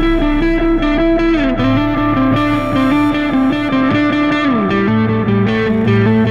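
Instrumental background music led by guitar, with held notes and a couple of notes sliding down in pitch.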